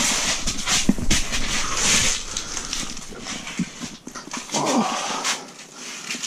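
Water splashing and sloshing in a small ice-fishing hole as a large walleye is held head-down in it and let go. About four and a half seconds in there is a short whine that falls in pitch.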